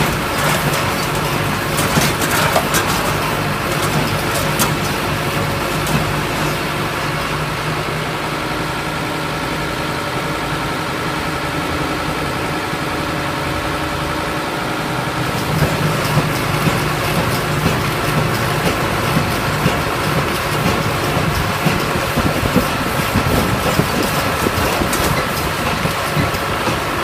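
Earthquake-simulator truck's shaking platform running: a steady mechanical hum with scattered knocks and rattles. It grows louder and busier about halfway through, as the shaking is stepped up to seismic intensity 7.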